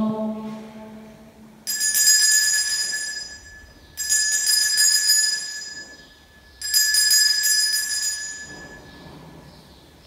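Altar bell rung three times, each strike ringing out and fading before the next, at the elevation of the chalice just after the consecration at Mass.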